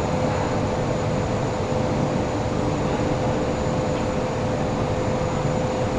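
Workshop machinery running steadily: a constant mechanical rumble with a steady hum, and no separate strokes or knocks.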